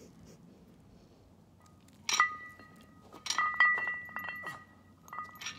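Metal clinking: sharp strikes in three clusters, each leaving a ringing tone at the same pitches.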